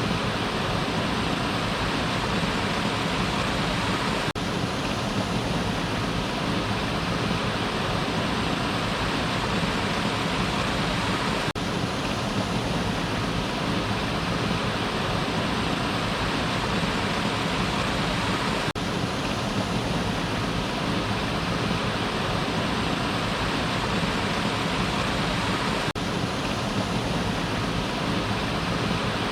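Waterfall: falling water in a steady, even rush with no change in level.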